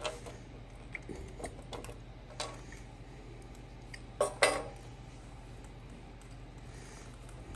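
Scattered light clicks and clinks of small metal parts being handled as a screw is taken out of a sliding-door lock latch with a Phillips screwdriver, with a few sharper knocks about two and a half and four and a half seconds in.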